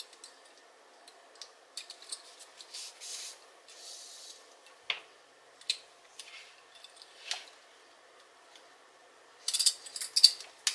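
Yarn and a needle being pulled through the bag's fabric by hand: scattered short rustles and light ticks, with a louder burst of rustling near the end.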